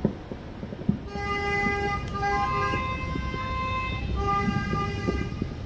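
A horn sounding long, steady tones that change pitch a few times, starting about a second in, with a short break near the middle of its run. Scattered pops of distant fireworks come through it, with a sharp one at the start and another just before the horn begins.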